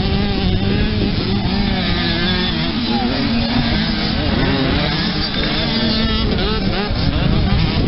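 Several motocross bikes revving hard as they race past on a dirt track, their engine notes rising and falling as the riders open and close the throttle through a bend.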